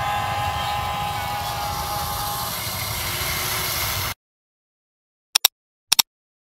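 Huina 580 RC model excavator's electric motors and gearing whining steadily as it digs, then cutting off abruptly about four seconds in. After a moment of silence come two quick double clicks.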